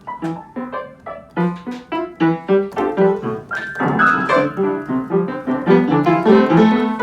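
Piano playing a lively melody of separate struck notes, thickening into fuller chords from about four seconds in.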